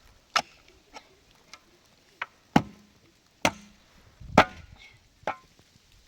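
Sharp blows on wood, about eight irregularly spaced strikes, a couple of them leaving a brief ringing tone.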